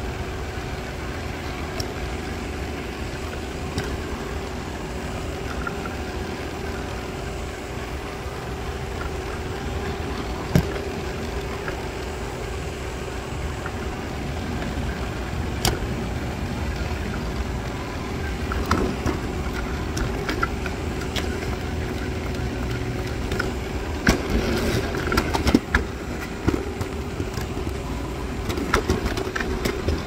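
Robot vacuum running, heard from a camera riding on it: a steady motor and brush hum, with sharp knocks as it bumps into things, once about ten seconds in, again a few seconds later, and several in quick succession near the end.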